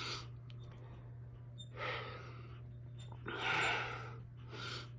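A person breathing near the microphone: four audible breaths or sighs, the loudest about three and a half seconds in, over a steady low hum.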